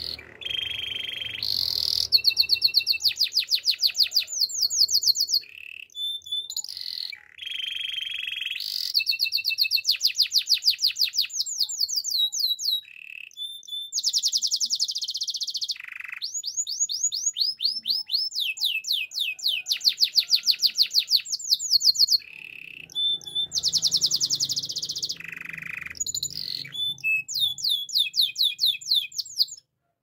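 Domestic canary singing: a long song of high trilled rolls, each a fast run of repeated notes, broken by short pauses between phrases.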